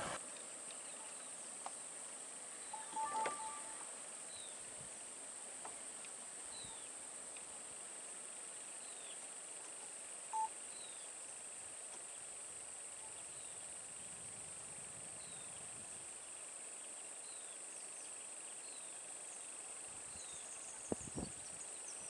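Quiet outdoor ambience: a steady high hiss with short falling chirps, like a bird calling, about every two seconds. Two brief beeps stand out, about three and ten seconds in.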